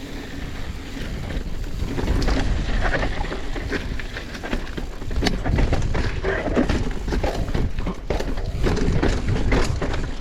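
Mountain bike being ridden down a dirt trail: wind rumble on the microphone with tyres on loose dirt and the bike rattling and clicking over bumps.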